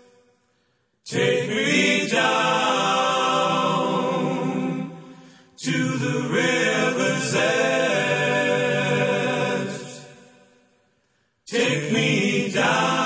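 Music: a choir singing sustained chords without clear words, in phrases that start suddenly and fade away, with short silent gaps about a second in and near the end.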